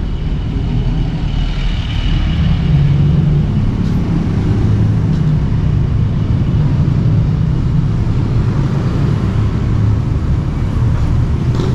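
Street traffic: motor vehicles running nearby, a steady low engine noise.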